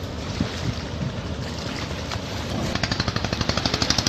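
A steady low rumble, then, about three seconds in, the rapid, even chugging of a boat engine starts up, about a dozen beats a second.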